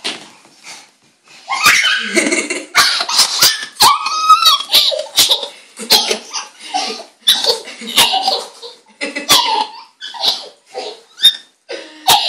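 Toddler laughing in repeated short, high-pitched bursts of giggles, starting about a second and a half in.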